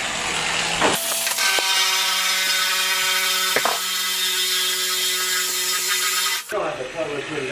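A drill spinning a faucet-hole core bit into a Fantasy Brown stone countertop, wet-cut with water: a steady whine with a grinding hiss. It starts abruptly about a second in and cuts off abruptly near the end.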